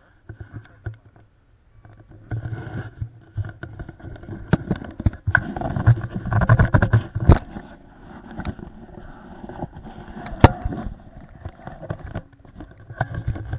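Uneven rumbling of wind buffeting a handheld camera's microphone, broken by sharp knocks and scrapes from handling; the loudest knocks come about seven and ten seconds in.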